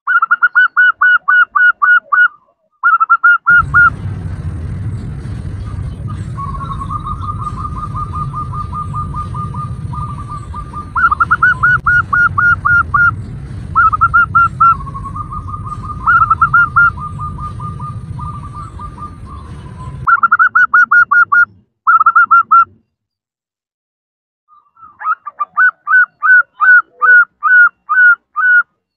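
Female zebra dove (perkutut) calling in quick runs of short, evenly spaced staccato notes, with longer fast rattling trills in the middle. A steady low background noise lies under the calls for most of the first twenty seconds.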